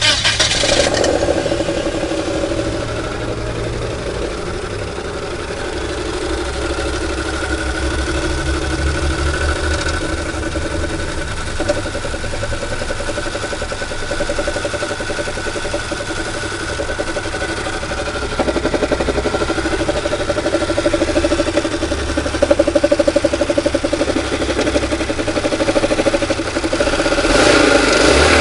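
Car engine running steadily, in a car with a knocking RL4F02A four-speed automatic gearbox, after a brief loud burst at the start. It gets louder near the end.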